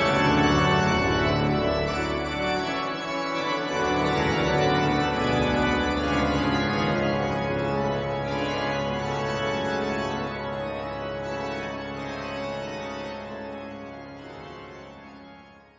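Church organ playing held chords, the music fading gradually away to nothing by the end.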